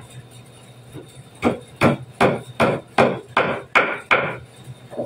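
A run of about eight knocks of a hand tool striking wood, two or three a second, starting a little over a second in.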